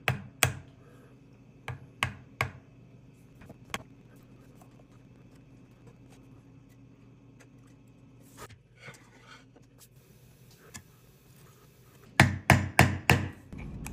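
Wood chisel chopping out a recess in a hardwood board: sharp knocks, a few scattered over the first four seconds, a faint scraping patch later, then a quick run of about five loud strikes near the end.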